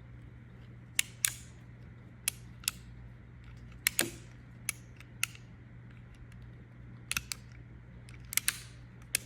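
Sharp metallic clicks of a Pietta 1851 Navy black powder revolver's single-action mechanism being worked by hand, some in quick pairs and triplets, as the hammer is cocked and the cylinder indexes round.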